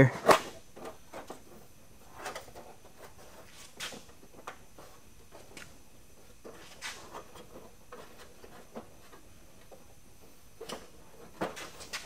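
Scattered light metallic clicks and taps of locking pliers (vise grips) being set and clamped onto a sheet-metal patch panel on a trunk lid, with a couple of sharper clicks near the end.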